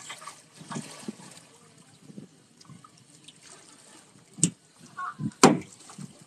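Kayak paddle blades dipping and splashing in calm water in uneven strokes, with a sharper splash about four seconds in and the loudest about five and a half seconds in.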